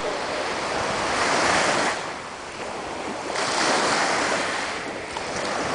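Sea surf breaking on a beach, a steady rushing noise that swells twice and falls away between, with wind buffeting the microphone.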